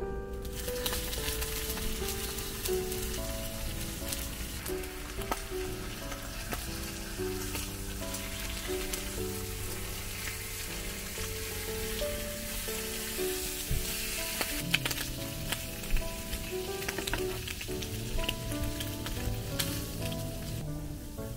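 Food frying: a steady sizzle with scattered crackles and pops that starts just after the beginning and cuts off shortly before the end, under background music.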